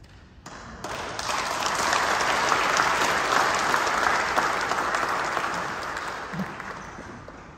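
Audience applauding in a church: the clapping starts about half a second in, swells, then fades away near the end.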